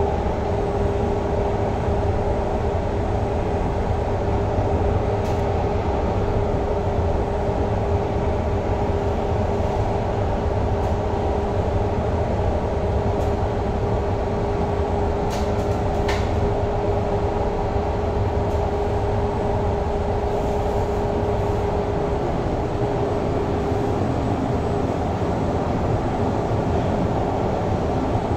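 Cabin noise of a Kawasaki-CRRC Qingdao Sifang CT251 metro train running at steady speed through a tunnel: a constant rumble of wheels on track with a steady hum-like tone that fades out near the end. Two brief clicks about halfway through.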